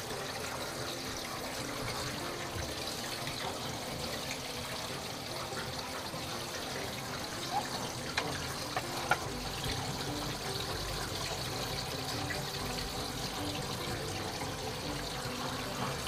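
Water from a half-full kitchen sink draining steadily down through newly glued plastic drain pipe, heard from beneath the sink, with a few faint clicks in the middle. The drain is running full as a leak test of the new plumbing.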